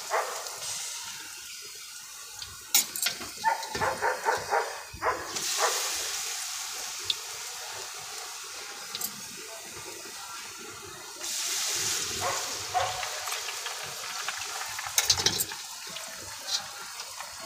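Hot oil sizzling in a wok during deep-frying; the hiss swells suddenly twice. Scattered clinks and taps of utensils and steel trays sound over it.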